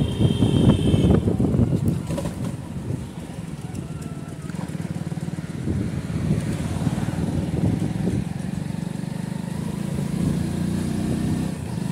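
Motorcycle engine running while riding, with wind buffeting the microphone, heaviest in the first two seconds.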